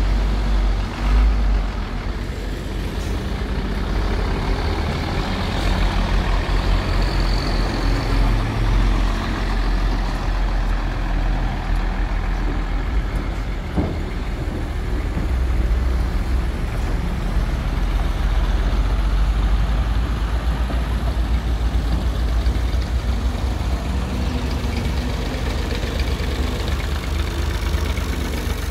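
Hino FG8J dump truck's diesel engine running as the truck moves off, a steady low rumble, with one short click about halfway through.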